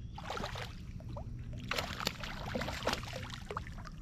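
Water splashing and sloshing around a small fishing boat: a few short splashes over a steady low rumble.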